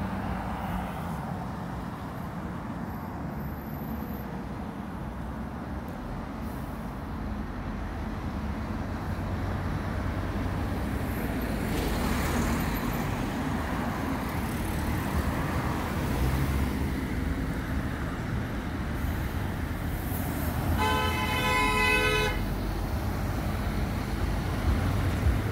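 Road traffic at a roundabout with the low diesel rumble of a Scania Enviro400 double-decker bus coming round and pulling away. Late on, a vehicle horn sounds once for about a second and a half.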